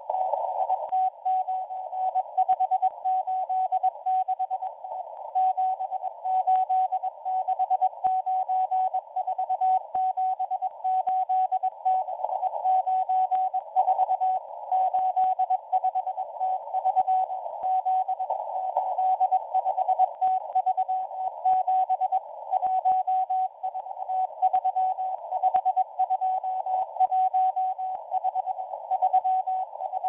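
M01 number station sending numbers in Morse code over shortwave: a single mid-pitched tone keyed on and off in dots and dashes, heard through a receiver's narrow CW filter over a band of hiss with faint crackles of static.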